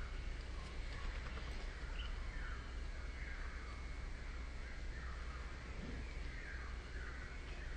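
Birds calling again and again, with short falling calls that overlap, over a steady low rumble.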